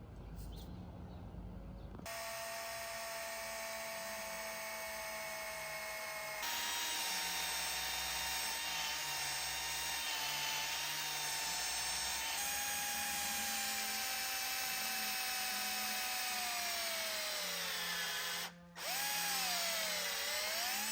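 An electric power tool's motor running with a steady whine while knife steel is being worked. Its pitch shifts in sudden steps, sinks as the tool slows near the end, breaks off for a moment, then dips and picks up again.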